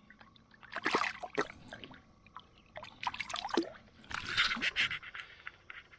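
Water splashing and dripping in irregular bursts as a hooked carp is worked at the surface beside a boat.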